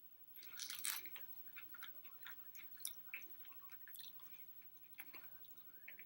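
Close-up mouth sounds of someone chewing a hot chicken wing: a run of small wet clicks and crackles, loudest about half a second to a second in.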